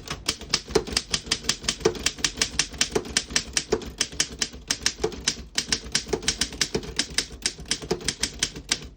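1914 Underwood No. 3 manual typewriter typing a sentence: a quick, steady run of typebar strikes, about five or six a second, that stops near the end.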